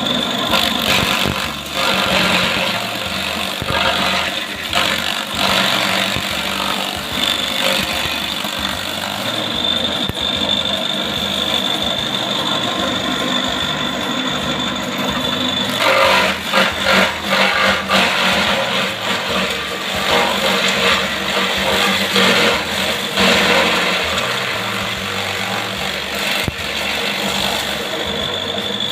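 Homemade electric grass chopper running as grass is fed in. Its electric motor drives a pulley and a spinning round steel blade plate. The machine gives a steady high whine over a dense rattling of chopping, with heavier bursts of chopping a little past halfway and again later.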